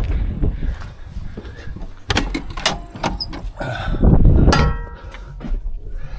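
Getting into a John Deere tractor cab: steps on the metal ladder and the cab door being opened and shut. It comes as a run of knocks and clunks, the loudest about four seconds in, with a brief squeak after it.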